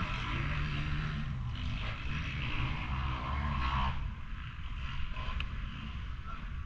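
Motocross bike engine revving, its pitch rising and falling with the throttle, easing off about four seconds in.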